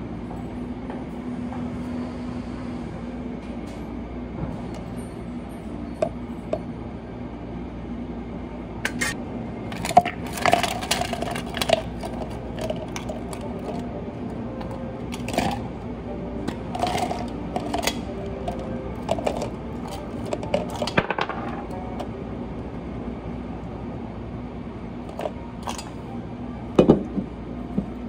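Light clinks and clicks of small hard objects being handled, clustered through the middle, over a steady low hum, with one louder knock near the end.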